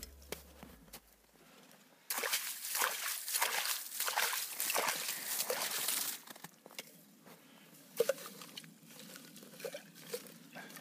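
Slush and broken ice sloshing and scraping in a hole in lake ice as it is scooped clear, a dense stretch of a few seconds starting about two seconds in. Then quieter splashes and gurgles as a kettle is dipped into the hole and fills with lake water.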